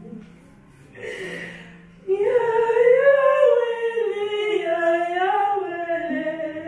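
Unaccompanied singing: after a soft sound about a second in, a voice comes in loudly about two seconds in and holds one long sung line whose pitch rises, falls and wavers for several seconds.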